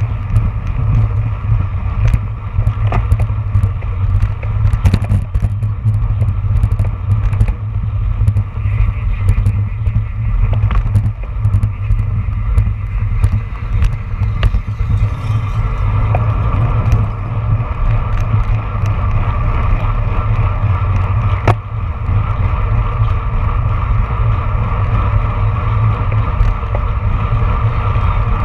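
Wind buffeting the microphone of a bicycle-mounted action camera at racing speed: a loud, steady low rumble. Over it come frequent light clicks and rattles from the racing bicycle on the road, thicker in the first half.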